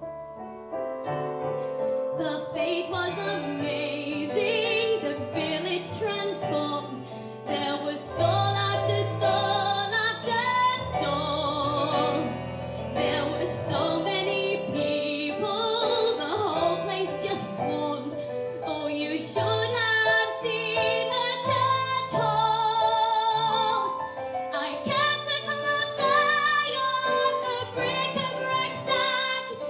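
A woman singing a musical theatre song into a microphone, with vibrato on long held notes, over a piano accompaniment.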